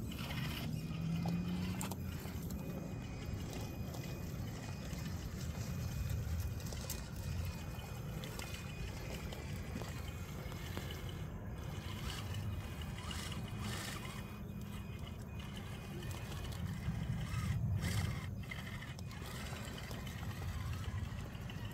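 Shallow rocky creek trickling while a Laegendary Grando 4x4 RC crawler truck drives through the water, with occasional short splashes and knocks from its wheels on the rocks.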